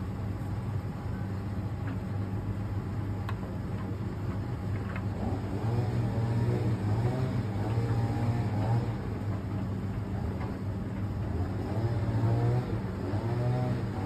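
Fisher & Paykel ED55NZ clothes dryer running with a steady low motor hum as its drum tumbles a load of laundry. About five seconds in it grows a little louder, and a repeating wavering whine joins the hum.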